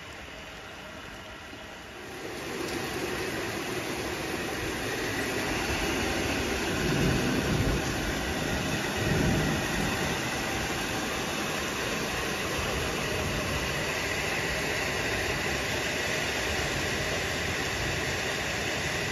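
Heavy rain falling in large drops: a steady hiss of rain that picks up sharply about two seconds in.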